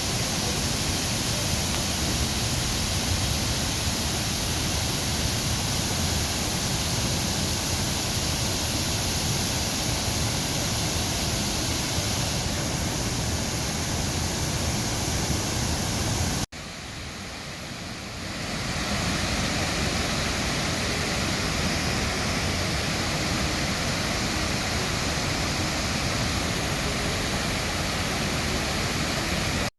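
Waterfall: a steady, loud rush of falling water. A little past halfway it cuts off sharply, comes back quieter and builds to full level again over about two seconds.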